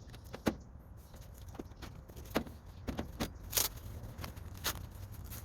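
Irregular sharp clicks and light knocks, about a dozen, from handling tools and parts while working on a riding mower's battery cable and key wiring, over a steady low rumble.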